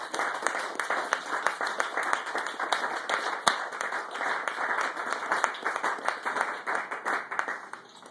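A small group applauding with hand claps that thin out and die away near the end.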